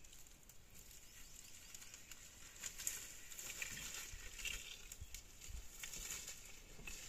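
A greater one-horned rhinoceros moving through tall dry grass: faint rustling and crackling of dry stems, with scattered small clicks.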